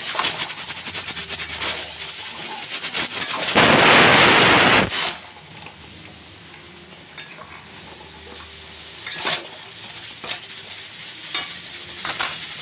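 A metal spatula scraping and clattering rapidly against a metal kadai as chicken pieces in thick masala are stirred and fried, with sizzling. A loud burst of hiss about three and a half seconds in lasts over a second and cuts off; after it the stirring goes on more quietly with occasional scrapes.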